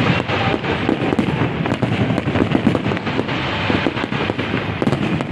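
Aerial fireworks shells bursting in a dense barrage: many rapid, overlapping bangs and crackles with no let-up.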